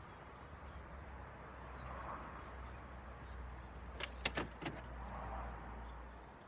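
Car door controls being worked: a quick run of four sharp clicks about four seconds in, over a steady low hum.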